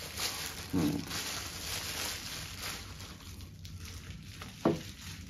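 Plastic bubble-wrap packaging crinkling and rustling as a camera grip is pulled out of it, fading after about three seconds. A short, sharper sound comes about a second in and a louder one near the end.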